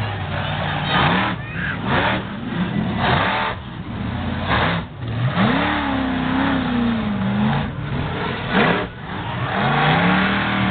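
Monster truck engine revving hard over and over, its pitch climbing and falling with each stab of throttle. About five seconds in it holds one long high rev for a couple of seconds, and it climbs again near the end.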